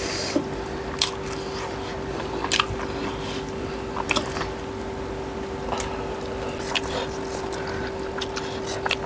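Close-up eating sounds: chewing and biting into cooked chicken leg pieces with rice, with scattered sharp wet clicks and smacks of the mouth, over a steady hum.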